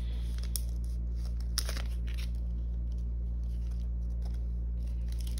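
Photo cards and clear plastic card sleeves being handled, with a few light clicks and rustles, the sharpest about a second and a half in. A steady low hum runs underneath.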